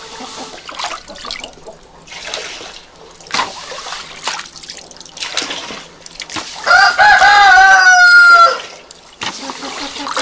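Straw broom swishing puddle water across wet concrete in repeated strokes, scooping it into a plastic dustpan. About two-thirds of the way in, a rooster crows loudly for about two seconds, the call holding and then falling at the end.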